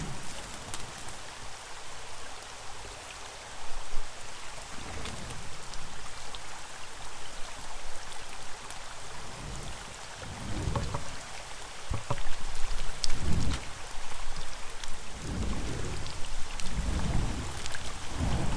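Steady rain hiss, with a run of low, rumbling whooshes from a flaming katana being swung through the air, several in quick succession in the second half.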